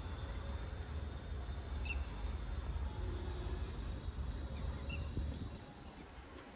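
A low steady rumble that drops away near the end, with a few short high bird chirps about three seconds apart.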